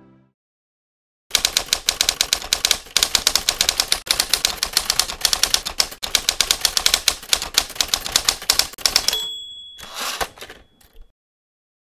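Typewriter sound effect: rapid keystrokes clacking for about eight seconds, then a bell ding about nine seconds in, followed by a short rasp like the carriage being returned.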